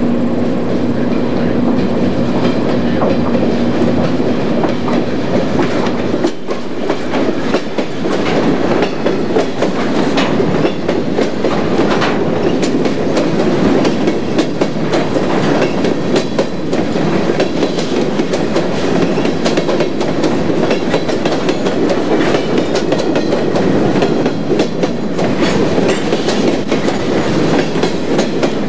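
Freight train passing close by. A diesel locomotive's steady engine note is heard until about six seconds in, then empty covered cement hoppers roll past with a steady clatter of wheel clicks on the rails.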